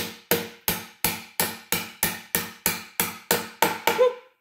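Hammer blows driving a threaded rod through drilled holes in glued-up boards: a steady run of sharp strikes, about three a second, each ringing briefly, that stops shortly before the end.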